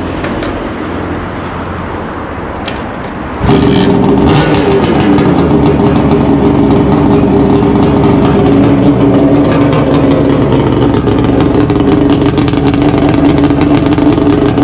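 Suzuki GT380 two-stroke triple running through its brass collector chamber exhaust. About three and a half seconds in it suddenly gets much louder, then holds a loud, steady note.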